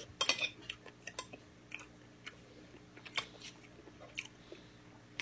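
Close-up chewing of gamjatang (Korean pork-bone stew): wet mouth clicks and smacks, a quick cluster just after the start, then scattered single clicks.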